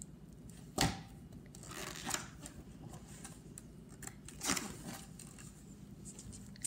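A hardcover picture book being handled, opened and its pages turned: paper rustling with a few sharp knocks, the loudest a little under a second in.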